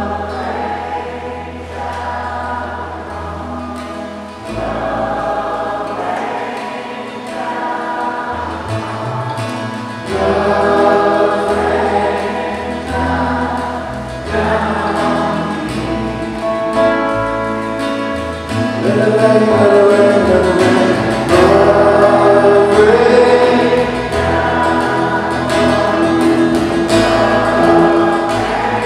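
Worship song sung by many voices together, with strummed acoustic guitars and a low bass line. It grows louder about ten seconds in and again past the middle.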